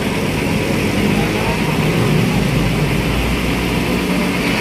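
Diesel engine of a car-carrier truck running steadily under load as the truck crawls around a steep hairpin bend.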